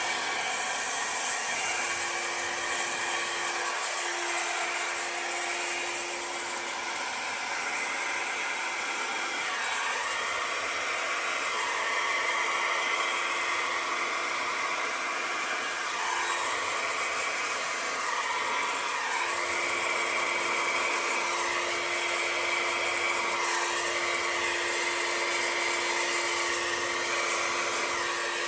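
Handheld hair dryer running continuously, its motor pitch dipping slightly now and then.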